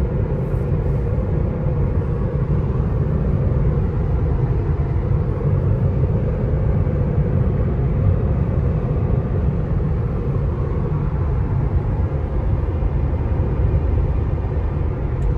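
Steady low rumble of road and tyre noise inside an electric Tesla cruising at highway speed, about 112 km/h.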